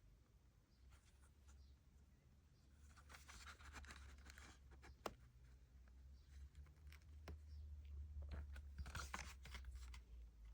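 Faint crinkling, scratching and clicks of a CD and its plastic packaging being handled and unwrapped, in two spells with one sharp click between them, over a steady low hum.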